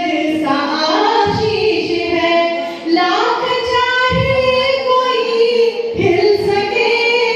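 A woman singing a Hindi love song (prem geet) into a handheld microphone, holding long, gliding notes.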